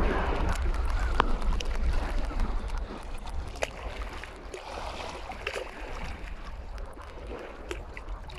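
Wind buffeting the microphone over choppy shallow lake water lapping around the waders. The wind rumble is strongest in the first few seconds and then eases, with a few small clicks and splashes.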